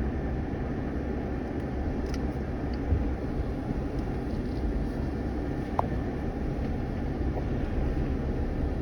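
Off-road 4x4, a Jeep Gladiator, crawling slowly over rough ground: a steady low engine and drivetrain rumble with a few light knocks and clicks from the suspension and body.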